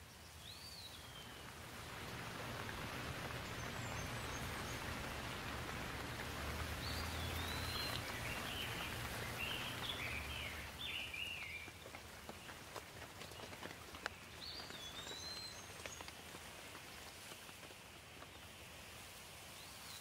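Steady light rain falling, swelling louder for several seconds and then easing, with scattered sharp drip ticks. A songbird gives a short whistled call near the start, a quick run of chirps about halfway through, and calls again twice later.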